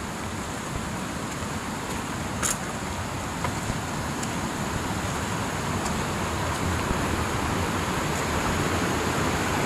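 Rushing water of a stream running high with runoff, a steady noise that grows louder, with a single sharp click about two and a half seconds in.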